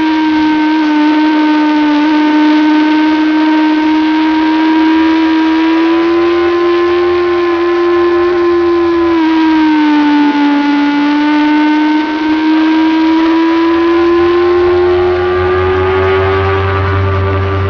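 Motorcycle engine running hard at high revs, heard from on board the bike. Its pitch holds fairly level, dips about ten seconds in, then climbs gradually near the end.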